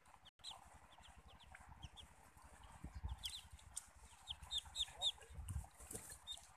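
Muscovy ducklings peeping: short, high, falling peeps in quick runs, thickest around the middle, over a low rumble.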